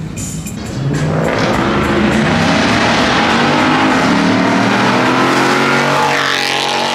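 A car engine revving hard and accelerating, loud from about a second in, its pitch climbing and falling as it revs.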